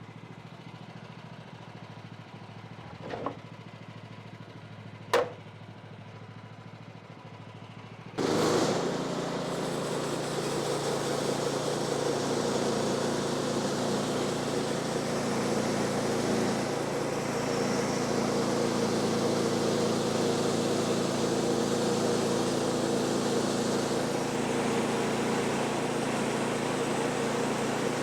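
An engine running steadily with two sharp knocks, then about eight seconds in a much louder steady engine sound starts abruptly and keeps on.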